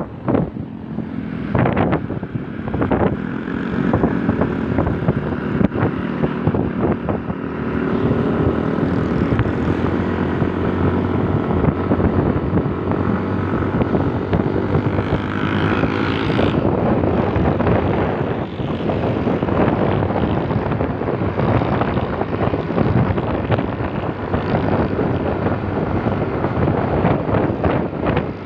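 Wind rushing over the microphone of a moving motor scooter, with the scooter's engine drone underneath. The engine's steady note is plainest in the first half and sinks under the wind noise after about sixteen seconds.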